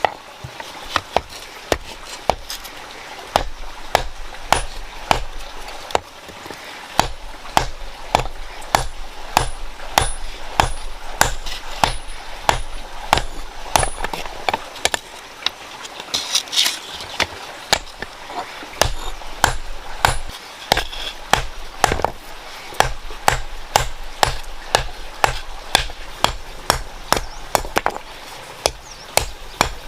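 Hammer blows on iron in a steady rhythm, about two strikes a second, typical of hand-forging a tool.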